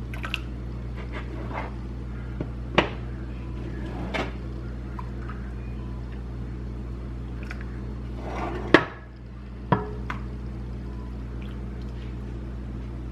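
A few sharp knocks and clinks of kitchenware being handled over a steady low hum. The hum drops off right after the loudest knock, about nine seconds in.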